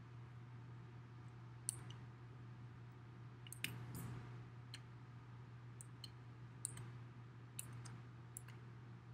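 Small paint roller being rolled over roofing tar paper: faint scattered clicks and a soft rush of the roller on the paper, over a steady low hum.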